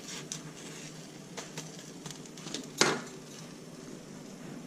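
Spatula scraping and tapping as a cooking omelette is rolled up on the hotplate, over a faint sizzle, with light clicks and one louder knock nearly three seconds in.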